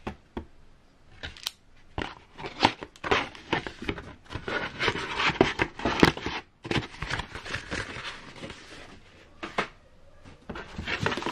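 Cardboard packaging scraping and rustling while an acrylic case panel and a cardboard mailer are handled and lifted out of a shipping box, with many irregular light knocks and clacks.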